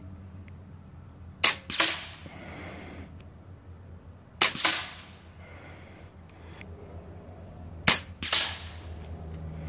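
Three shots from an Ataman M2 Ergonomic .25 calibre PCP air rifle, about three seconds apart, each a sharp crack followed about a third of a second later by a second, duller report.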